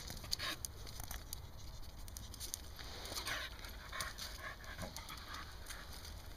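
A dog breathing hard with its nose to the ground: quick, short sniffs and pants, repeated throughout.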